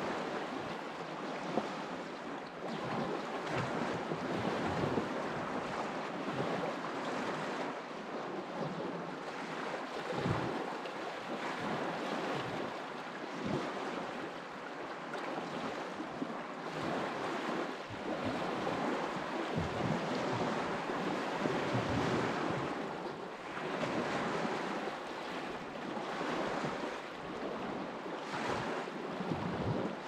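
Continuous rush of water on the Bukhtarma, swelling and easing every few seconds, with brief wind gusts on the microphone.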